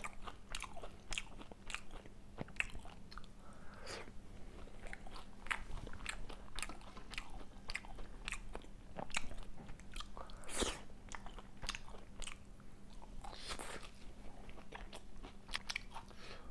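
Close-miked chewing and biting of crispy fried pomfret, with a run of short crunches and wet mouth clicks.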